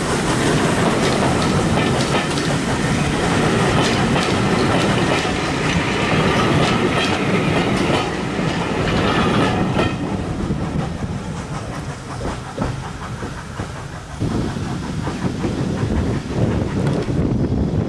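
Heritage passenger coaches of a train rolling past close by, their wheels clicking over rail joints. The sound drops away after the last coach passes, about ten seconds in.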